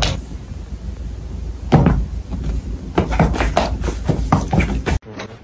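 A cat batting a tablet lying on a rug: a series of knocks and thumps, the loudest about two seconds in.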